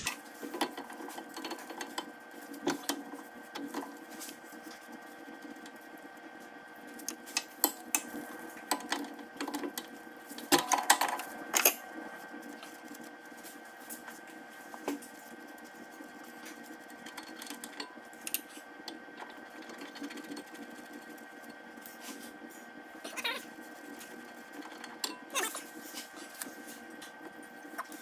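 Scattered clinks and scrapes of a wrench and metal hydraulic fittings being worked by hand on a skid steer, busiest about a third of the way in, over a steady background hum.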